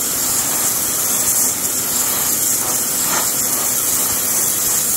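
EGO 56-volt cordless pressure washer on turbo, its 0-degree nozzle driving a narrow jet of water against a painted wooden board and stripping the paint: a steady, loud hiss of spray with a faint steady hum beneath.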